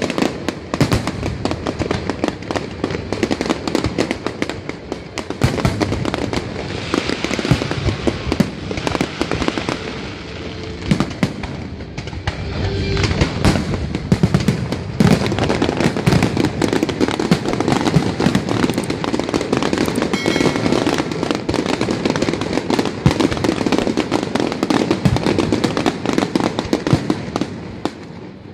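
Aerial fireworks shells bursting in a dense run of bangs and crackling stars, thinning briefly about a third of the way through and again near the end. Music plays underneath.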